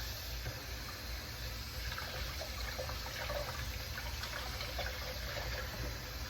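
Kitchen tap running into the sink while raw chicken breast is rinsed under it, a steady wash of water with small splashes and handling sounds scattered through it.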